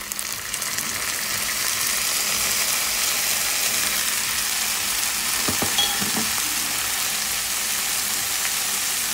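Hot oil sizzling in a frying pan as washed, still-wet broccoli florets are tipped in over sautéed onion and garlic. The sizzle builds over the first second, then holds as a steady hiss.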